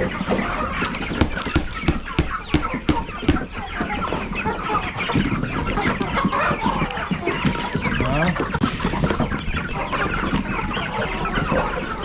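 A large flock of chickens clucking, many overlapping calls at once, crowding and waiting to be fed.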